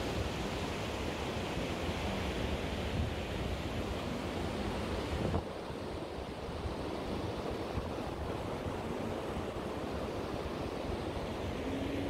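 Wind blowing across a phone's microphone: a steady rushing noise heaviest in the low end. It drops abruptly and becomes quieter a little over five seconds in.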